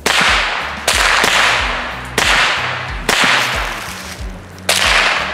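Five sharp, loud cracks, each trailing off over about a second, over background music with a low bass line.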